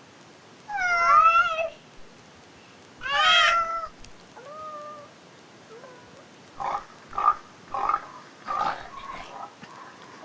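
A baby's voice imitating a cat: two loud meow-like calls with bending pitch in the first few seconds, followed later by a run of short, clipped sounds.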